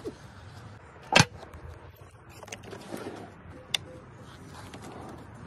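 Camper storage box and drawer fittings being handled: one sharp clunk about a second in, then a few lighter clicks, over a low steady hum.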